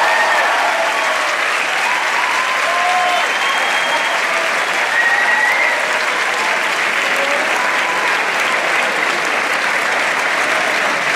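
A large audience applauding steadily, with a few voices calling out over the clapping.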